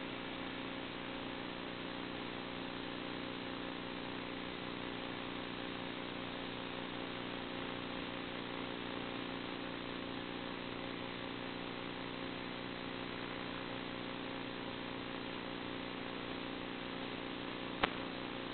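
Steady hiss with a constant hum of several fixed tones underneath, unchanged throughout, and one sharp click near the end.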